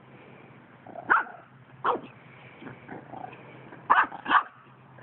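Puppy barking during play: four short yaps, the last two close together near the end.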